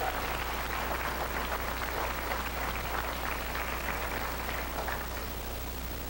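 Applause from the people present, a dense patter of hand claps that thins out near the end.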